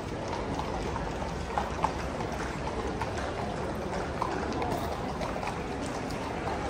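Steady murmur of a street crowd, with a few scattered hoof clops from horses walking on the pavement.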